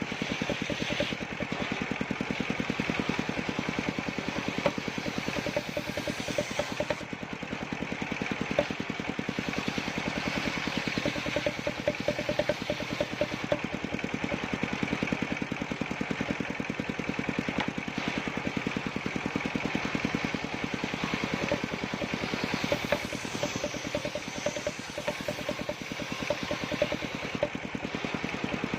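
Engine of a wood-cutting circular saw machine running steadily at an even speed, its fast, regular firing pulses unchanged throughout.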